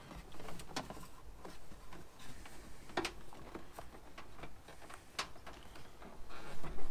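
Small clicks, taps and rustles of an antenna cable being pushed behind plastic engine-bay trim, with two sharper clicks about three and five seconds in.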